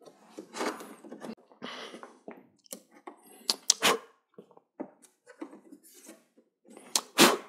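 Thin plastic diffuser sheets of an LED TV backlight being handled and laid into place: soft rustles and irregular light clicks, with sharper clicks a little after three and a half seconds and again near the end.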